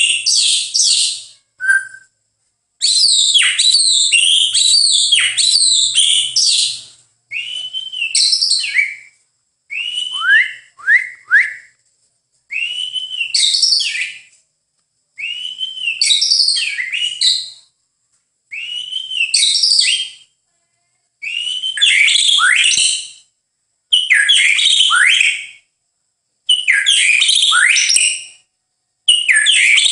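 White-rumped shama (murai batu) singing: a string of loud, varied whistled phrases, each one to four seconds long, made of arched and steeply falling notes, with short pauses between phrases.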